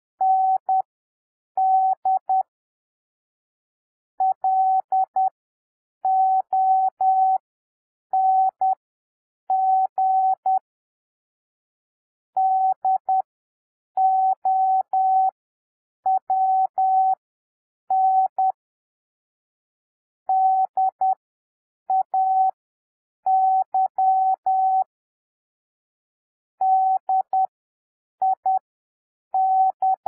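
Computer-generated Morse code practice tone: a single steady beep keyed on and off in dots and dashes at 10 words per minute character speed, with wide gaps between letters and words (7 WPM overall, Farnsworth spacing). It sends the words "find long down day".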